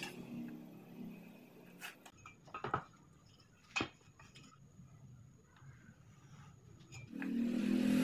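A few light knocks and clicks as a steel try square and an aluminium handle are set down and shifted on a plywood board, the sharpest about four seconds in. Near the end, a louder motor sound with a steady low hum starts up and grows.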